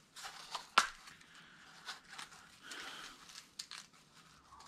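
Small clear plastic box of pins being handled over fur: a few sharp plastic clicks, the loudest a little under a second in, among soft rustling.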